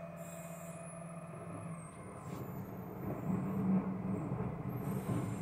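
Distant Volvo refuse collection lorry with its diesel engine running, a steady low hum that gets louder and rougher about three seconds in.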